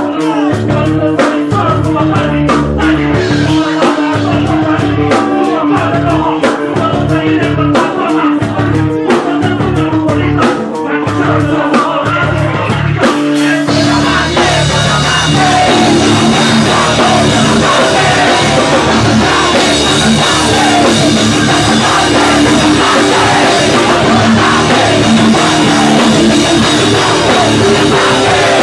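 Live hardcore band playing loud in a club: heavy drum and guitar hits with short stops between them, then about 13 seconds in the band breaks into a fast, continuous part.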